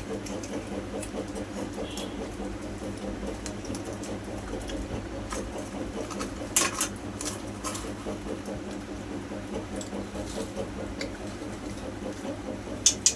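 Someone eating puri and sabji: quiet chewing and handling of food, with a few sharp clinks of the plate about six to seven seconds in and twice near the end, over a steady low hum.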